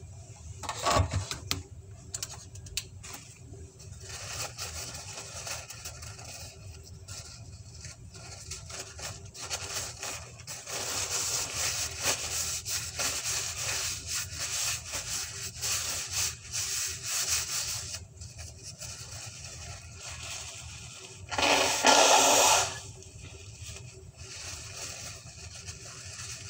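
Close-up eating and food-handling noises: a salad bowl and food being handled right by the microphone, with small clicks, rubbing and scraping. A loud rustle lasts about a second near the end.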